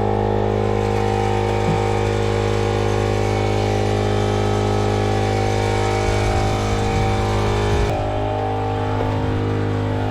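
A small engine running at a steady speed, with a few low knocks in the second half.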